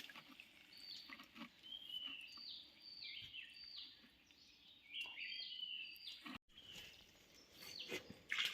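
Faint bird calls: a run of short, high chirps, each stepping down in pitch, repeating about twice a second, then fading out.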